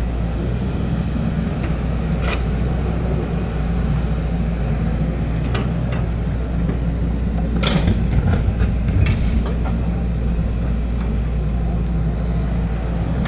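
Hydraulic excavator's diesel engine running steadily under digging load, with a few sharp knocks, the loudest about two-thirds of the way through.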